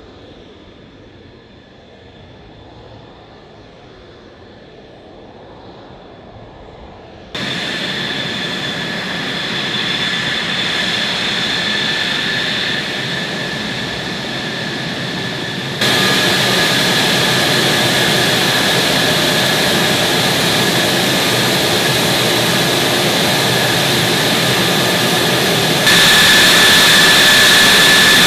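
F-35 Lightning II's F135 turbofan running: a steady high whine over rushing jet noise. It is fainter for the first several seconds, then turns suddenly louder about seven seconds in, again around sixteen seconds, and once more near the end.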